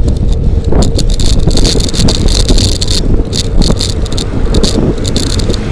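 Heavy wind rushing over the microphone while riding a bicycle at speed, with irregular clicks and rattles over it.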